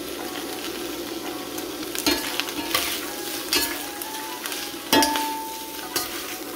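Bean sprouts and chicken sizzling as they are stir-fried in a stainless steel frying pan. A spatula knocks against the pan about five times as it tosses them, the loudest knock about five seconds in, ringing briefly.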